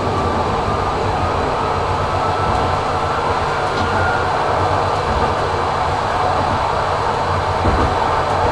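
Tram running along street track at steady speed, heard from inside the car: an even rumble of wheels on rail with a faint steady high tone.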